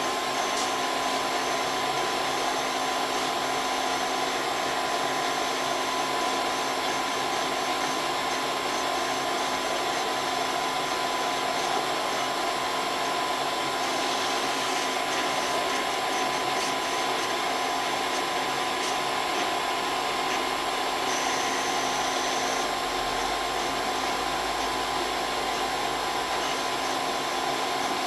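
Graphtec CE5000-60 vinyl cutter contour-cutting a transfer sheet: a steady motor whir with a constant whine as the cutting carriage and feed rollers move. A low hum joins in the last few seconds.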